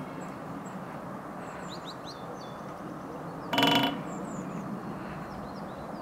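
Great spotted woodpecker drumming on a metal TV antenna: one rapid roll of strikes a little past halfway, lasting about a third of a second and ringing with a metallic tone. Faint chirps of small birds sound over a steady low background noise.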